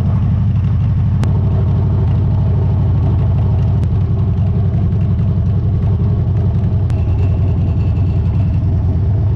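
Motorcycle engine running steadily: a dense, low, pulsing rumble.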